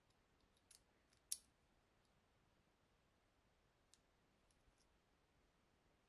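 Faint, sparse small metal clicks as a metal bobbin is fitted into a Singer 191K's bobbin case and handled, the sharpest click about a second in.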